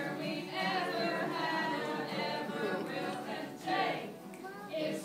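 A group of people singing together, accompanied by two acoustic guitars.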